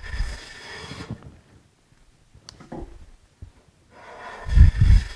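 Wooden jointer plane cutting along the edge of a board: two strokes, each about a second long, with the hiss of the shaving peeling off the edge. The second stroke is louder.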